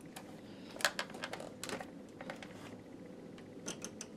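Scattered sharp plastic clicks and taps from handling the race-car alarm clock and working its buttons and switches, a few at a time, with a faint steady hum behind.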